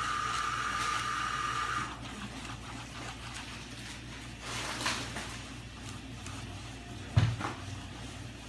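Plastic utensil stirring glue and paint on a paper plate, with faint scraping strokes. A steady high whine stops about two seconds in. A single sharp knock about seven seconds in is the loudest sound.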